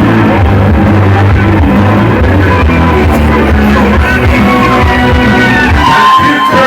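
Loud music played through a large sound system, with a dense steady bass line. A voice sings over it in the latter part.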